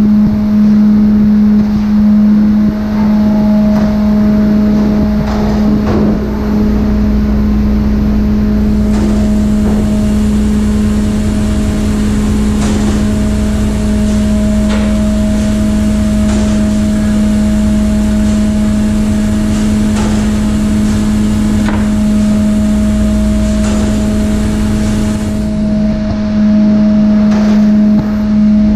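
Steady, loud drone of a ship's machinery on a fish-processing deck: a constant low hum with a fainter higher tone above it. Scattered knocks and clatters of fish and tools being handled on the steel table come through it.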